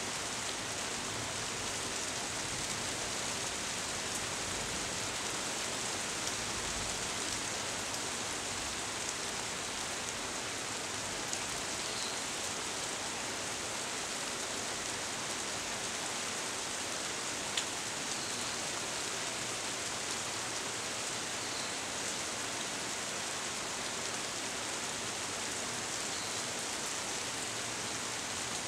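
Steady rain falling on tree leaves, an even hiss with a few single drops ticking sharply close by.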